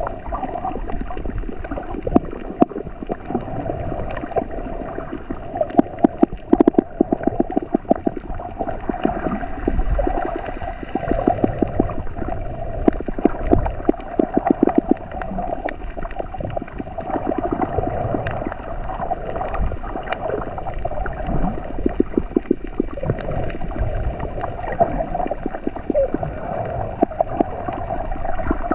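Underwater gurgling and bubbling picked up by an action camera held below the surface while snorkeling over a reef. Clusters of rapid clicks come several times.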